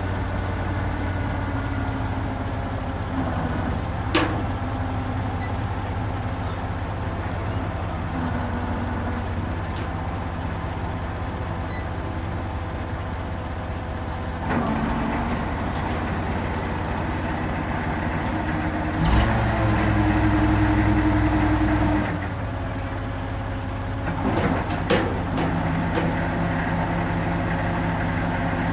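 Truck crane's engine running steadily while it unloads concrete blocks, with a few sharp clanks of chain. The engine note rises and grows louder for about three seconds two-thirds of the way through, then drops back.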